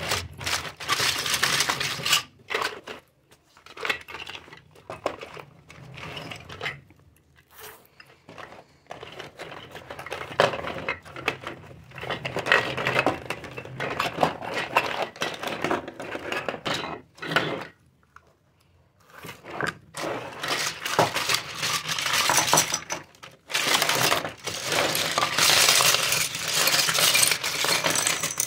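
Small plastic toy kitchen pieces clattering and clinking against each other and the table as they are handled and tipped out of mesh zipper bags, with rustling of the mesh. The densest clatter comes near the end as a bag is emptied.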